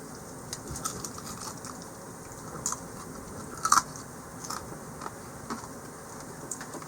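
A person biting and chewing crispy double-dipped buttermilk fried chicken: a series of irregular crunches, the loudest about four seconds in.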